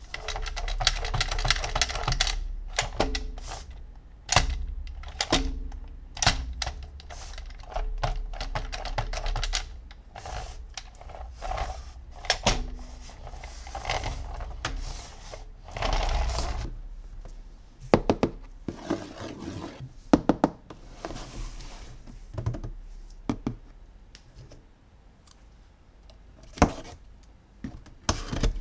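Plastic toys and their packaging being handled close to the microphone: many sharp clicks, taps and knocks, some in quick runs, between stretches of rustling.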